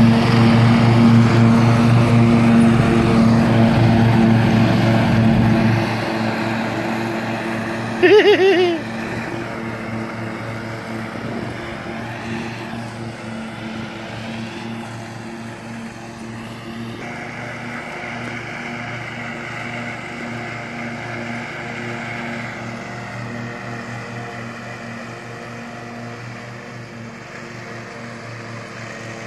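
Husqvarna riding lawn mower's engine running steadily while it mows, loud and close at first, then fainter after about six seconds as the mower drives away. A person calls out briefly about eight seconds in.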